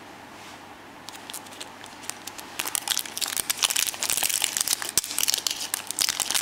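Printed foil wrapper crinkling and crackling as it is peeled off a Disney Princess surprise egg. It starts about two and a half seconds in and grows louder.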